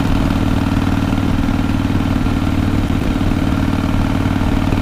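Harley-Davidson Softail CVO Fat Boy's V-twin engine and exhaust running steadily while riding at cruising speed, with no change in revs.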